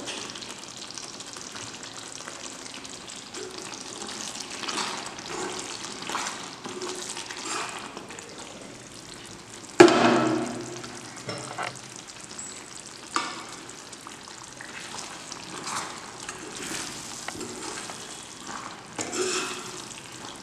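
Thick curry gravy bubbling and sizzling in a cooking pot while a spoon stirs and scrapes through it in soft strokes. A sharp knock sounds just before halfway, and a smaller one a few seconds later.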